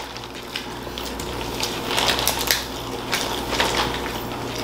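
Plastic seafood-boil bags and disposable gloves crinkling, with the crunch and squish of king crab legs and seafood being broken open and eaten by hand: many short, irregular crackles.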